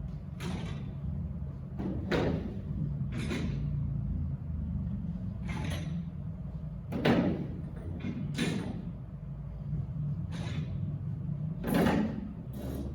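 Stacking chairs being lifted off stacks and set down in rows: a run of about eight scraping clunks, one every second or two, over a steady low hum of the room.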